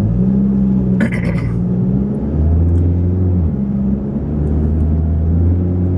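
Car engine hum and road noise inside a moving car's cabin, a low steady drone whose pitch shifts a couple of times as the engine speed changes.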